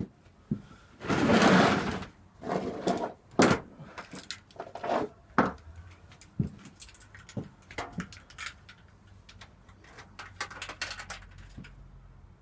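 Scattered clicks and knocks, with a brief scraping rustle about a second in that is the loudest sound. The motorcycle engine is not running.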